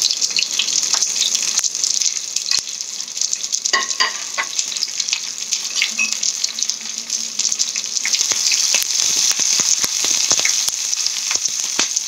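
Slit okra pods frying in very hot mustard oil in a wok: a steady sizzling hiss with many small crackles and pops.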